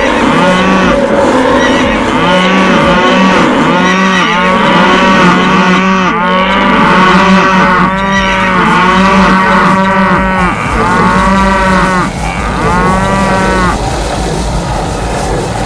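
A herd of cattle mooing again and again, many calls overlapping, over a steady noisy din. The mooing stops about 14 seconds in.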